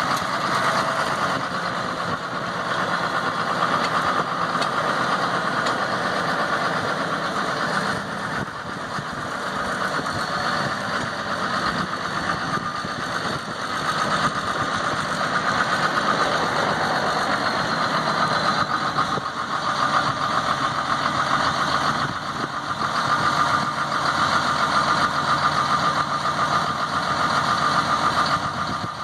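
2011 John Deere 7230 tractor's six-cylinder diesel engine running steadily while the tractor is driven around, its level staying fairly even throughout.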